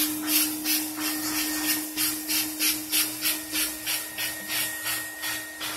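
Roboclean vacuum motor running steadily while the upholstery shampoo tool is stroked back and forth over fabric chair upholstery, giving a rhythmic hissing rasp about three times a second.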